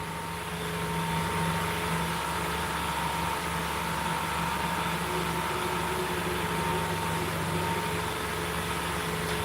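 A steady mechanical hum with a few constant tones, even and unbroken throughout.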